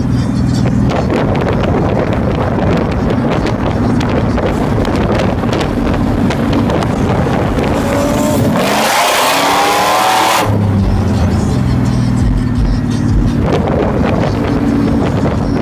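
Cars racing at full throttle, loud engine noise with road and wind rush. A little past the middle, the engine note climbs sharply in pitch for about two seconds, then falls back to a steadier drone.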